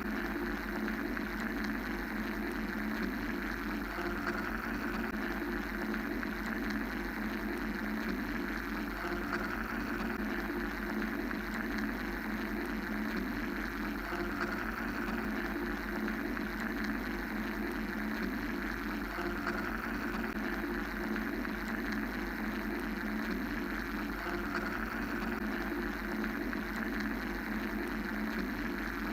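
Steady mechanical white-noise drone: a continuous, even hum with a hiss above it that never changes, with no pauses or separate events.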